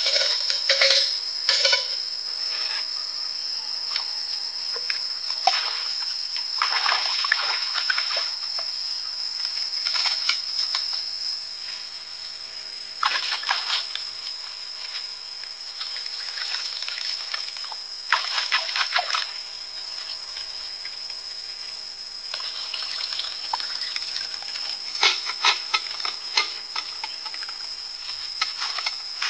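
Steady high-pitched insect chorus, crickets or similar, with a few short spells of clicking and knocking over it.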